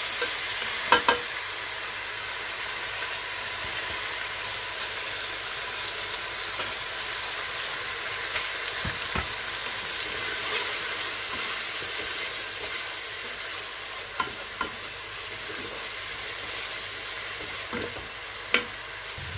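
Onion, tomato and spice masala sizzling in hot oil in an aluminium pressure-cooker pot while it is stirred with a wooden spoon, with a few knocks along the way. The sizzle grows louder about halfway through for several seconds.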